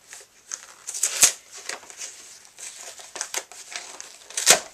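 A paper mailer envelope being handled and torn open: crinkling and rustling with scattered sharp snaps, the loudest about a second in and again near the end.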